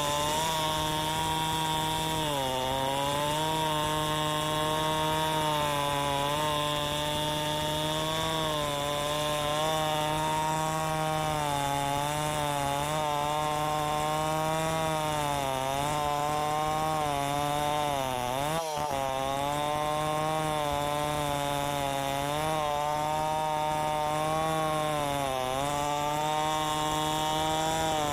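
Tecomec two-stroke chainsaw running at high revs while ripping lengthwise through a gmelina log in a chainsaw mill. The engine note sags several times as the chain bites and then recovers, with a brief sharp drop about two-thirds of the way through.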